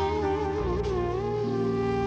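Background music: a gliding lead melody over held chords and a pulsing bass, the bass moving to a new note about half a second in.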